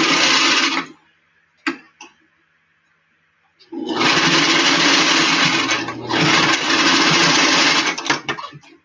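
Electric sewing machine stitching in short runs. It runs for under a second at the start, gives two short clicks, then runs for about two seconds, dips briefly, and runs for two seconds more. It slows to a few clicks near the end.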